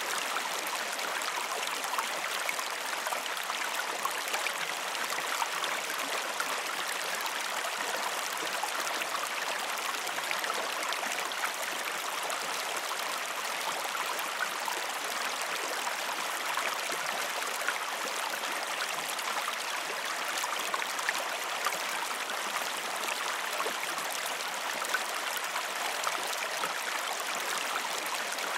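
A creek running over rocks: a steady, even rush of water with no deep rumble.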